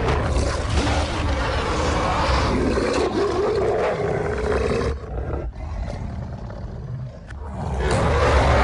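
Werewolf creature roaring and snarling in a film sound effect, with a deep rumble beneath. It drops away for a couple of seconds past the middle, then swells back loud near the end.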